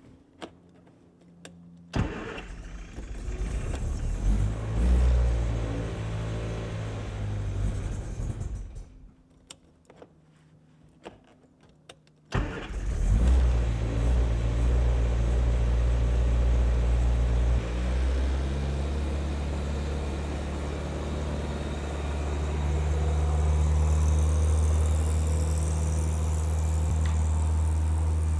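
An engine starts with a sudden onset, runs for about six seconds and stops. About four seconds later it starts again and keeps running steadily.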